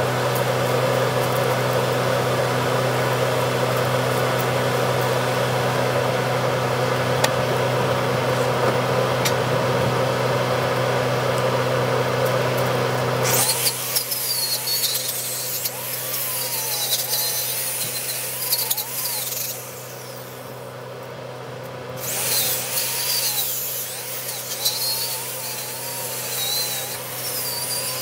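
A steady low machine hum, then about halfway through an angle grinder with a wire wheel starts scrubbing the fresh welds on a steel pintle hitch, its pitch wavering under load. It eases off for about two seconds and then resumes.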